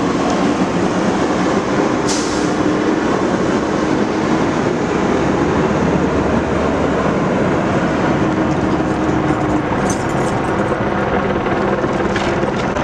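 Steady, loud rumble of heavy engines running, with a faint steady hum through it and a few brief sharp clicks, about two seconds in and again near the end.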